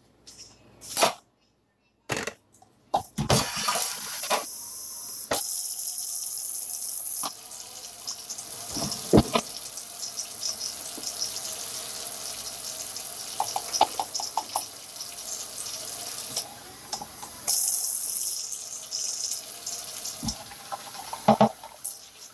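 Kitchen tap running steadily, with water being poured from a plastic cup into a pot. A few clinks and knocks of dishes come in the first seconds and a couple more come later.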